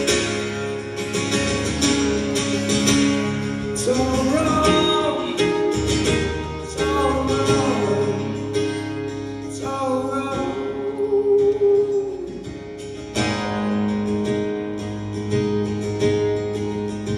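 A steel-string acoustic guitar strummed in a live solo performance, with a man singing over it into a microphone.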